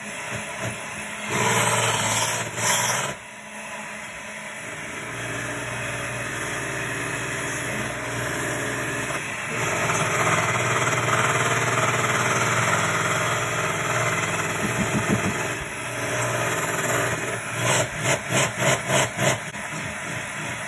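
Electric hand mixer running, its beaters whirring through thick cream cheese batter in a bowl. It is louder for the first three seconds, then runs steadily, with a quick run of about six pulses near the end.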